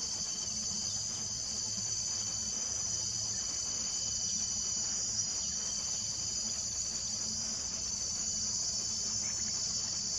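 Steady, high-pitched chorus of insects, unbroken and even in level.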